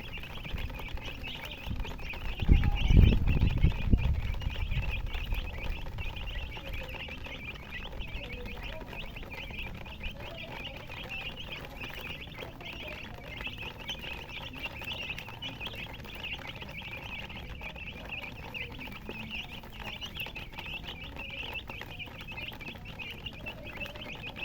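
A brood of baby chicks peeping, many short high chirps overlapping continuously. About two and a half seconds in, a loud low rumble lasts a second or two.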